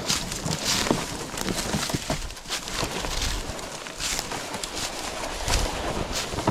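A sled loaded with a deer being dragged over the ground, scraping and rustling through leaves and brush along with crunching footsteps.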